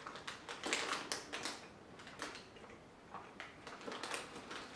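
Plastic wrapper of a protein cookie crinkling and crackling in irregular clicks as it is handled.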